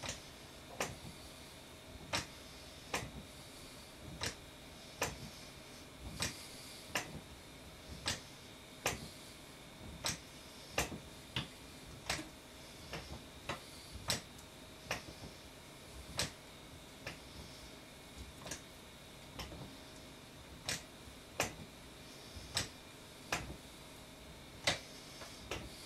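Exercise stepper clicking with each step, sharp clicks coming about once a second, now and then two close together, in a steady rhythm.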